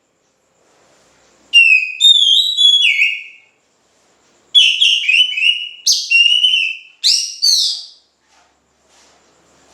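Oriental magpie-robin (kacer) singing loudly in rapid, varied whistled phrases: one burst about a second and a half in, then a longer run from about four and a half seconds, with short pauses between.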